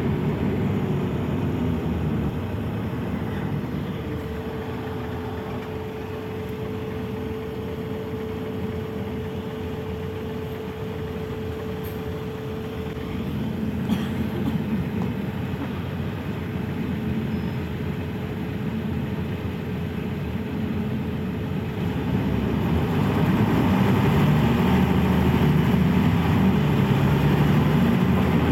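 Mercedes-Benz O 405 city bus running on the road, its inline-six diesel engine heard throughout. The engine eases off at first, with a steady whine held for several seconds. About 22 seconds in it builds up louder and stays loud, as the bus pulls away under power. There is a single click about 14 seconds in.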